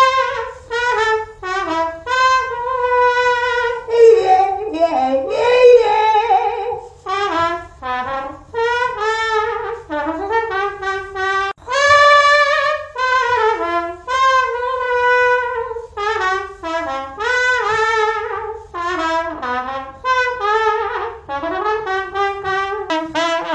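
Mouth trumpet: a person imitating a trumpet with the voice, playing a melody in short phrases of held notes with pitch slides between some of them.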